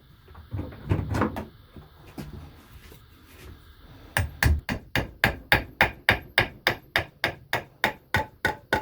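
Hammer tapping a wall plug through a wooden board into brick: a few scattered knocks, then about four seconds in a steady run of quick, sharp strikes, roughly four a second.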